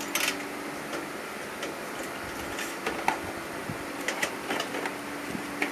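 Scattered light clicks and taps of a USB memory-card reader being handled and fitted into a computer case's drive bay, over a faint steady hum.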